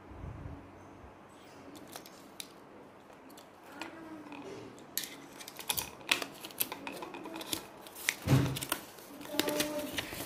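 Hard plastic clicking and knocking as a toy car's round plastic display case is opened and its parts handled. A run of sharp clicks starts about halfway through, with one loud knock near the end.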